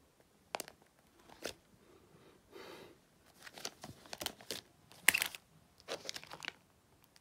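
Clear plastic sleeve pages of a trading-card binder crinkling and crackling as they are handled and turned, in a run of short crackles, the loudest about five seconds in.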